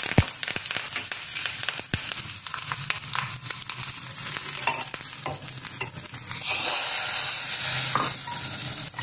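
Tadka of mustard seeds, fenugreek, asafoetida, dried red chillies and curry leaves sizzling and crackling in hot oil in a small pan. About six and a half seconds in, the sizzle turns louder and steadier as the hot tempering is poured into the pot of sambar.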